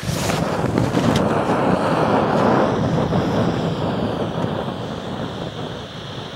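Firework fountain burning: a loud, steady rushing hiss that starts suddenly, with a few sharp crackles in the first second or so, easing a little toward the end.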